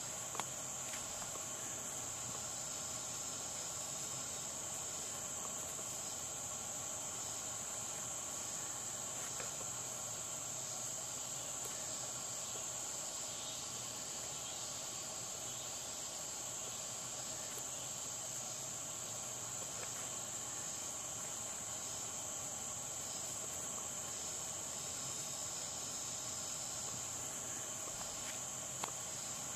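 A steady, high-pitched chorus of insects, unbroken and even in level, with a faint click about half a second in and another near the end.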